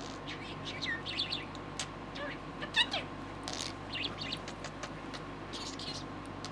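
Budgerigar chattering and warbling in short, rapid bursts of varied pitch, with scattered sharp clicks.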